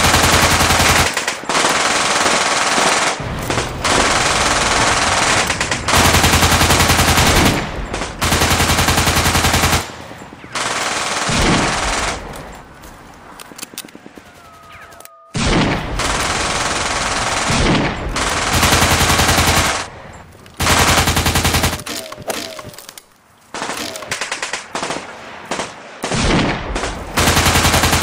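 Machine-gun fire in long bursts of rapid shots, separated by short pauses, with a quieter lull about halfway through that holds only a few single shots.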